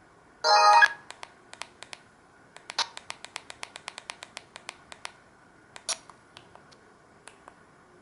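A Samsung SGH-D780 mobile phone's speaker plays a short burst of a ringtone that cuts off after about half a second. Then comes a quick run of sharp clicks, about seven a second, and a few scattered clicks near the end.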